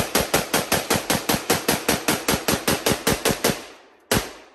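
AR-style pistol emptying its magazine in rapid semi-automatic fire, roughly five sharp shots a second. The string stops a little after three seconds in, and one last shot follows about half a second later.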